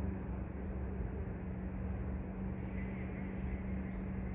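Steady low outdoor rumble with a constant low hum running through it.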